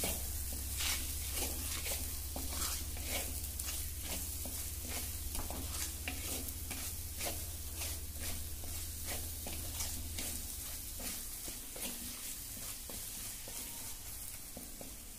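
A wooden spatula stirs and scrapes spice paste frying in oil in a clay pot, about two strokes a second, over a steady sizzle.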